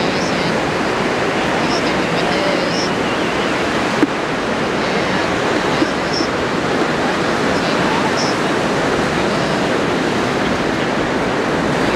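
Ocean surf breaking and washing ashore, a steady rush of noise, with a short knock about four seconds in.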